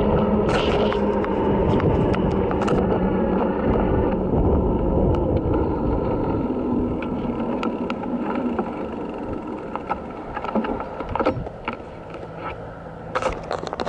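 Electric bike riding on pavement: a steady motor whine over wind rumble on the microphone. The whine sinks in pitch and the sound eases off about halfway through as the bike slows, followed by scattered clicks and rattles from the loose handlebar camera mount and wire basket.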